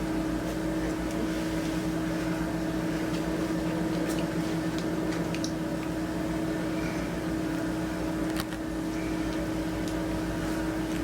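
Steady hum of a room appliance's motor, a constant tone over a low drone, with a few faint clicks.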